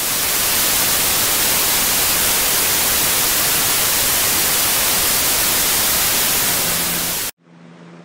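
White noise from a sound machine's white-noise setting: a steady, even hiss, strongest in the treble, that cuts off suddenly about seven seconds in. A brief faint low hum follows it.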